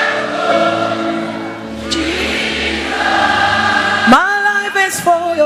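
Live gospel worship singing by a choir with music, voices holding long notes; about four seconds in a single strong voice slides up and holds a high note.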